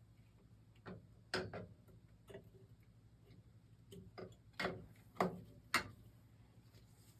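Irregular metallic clicks and knocks from hand tools and parts as the Beckett oil burner's electrode assembly is tightened and fitted back in, about nine in all. The loudest come about a second and a half in and just after five seconds.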